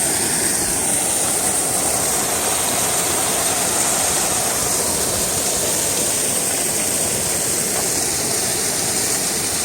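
Waterfall at close range: a loud, steady rush of falling water that holds unchanged throughout.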